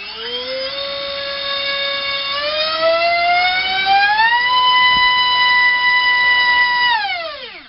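Multistar Viking 1808 2600kv brushless outrunner motor on a 4S battery, spinning a Diatone 4045 bullnose three-bladed prop. Its whine rises as the throttle opens and climbs again between about two and four seconds in to a steady, loudest high pitch. It then falls away as the motor spins down near the end.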